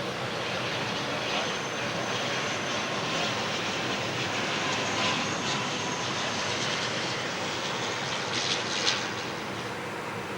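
Engine noise of an airliner on final approach: a steady rushing noise that eases off slightly near the end.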